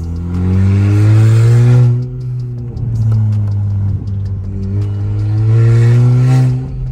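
Volkswagen Jetta with a straight-through exhaust accelerating hard in second gear, heard from inside the cabin. The engine note rises for about two seconds, eases off, then climbs again near the end.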